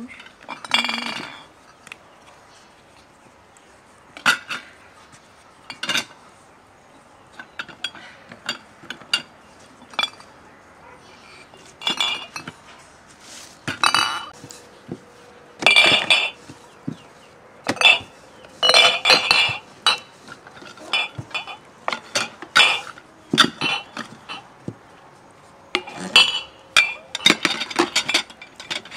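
Dishes and utensils clinking and knocking as they are handled: irregular separate clinks and taps, some ringing briefly.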